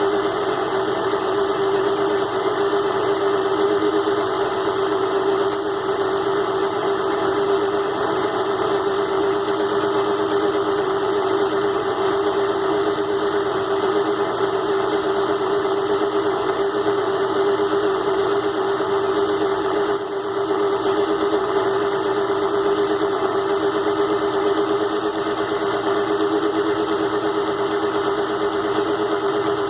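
ZhouYu 6-in-1 mini lathe's small DC motor running steadily with a constant whine while a groove is cut in an aluminum workpiece; the level dips briefly about two-thirds of the way through.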